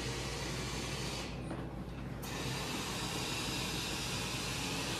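A steady hiss with a low hum underneath. The upper part of the hiss drops out for about a second, starting around a second in, and comes back with a small click.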